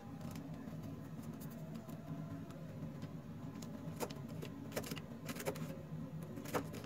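Kitchen knife cutting cabbage on a foil-covered wooden cutting board: a few sharp taps from about four seconds in, over a steady low hum.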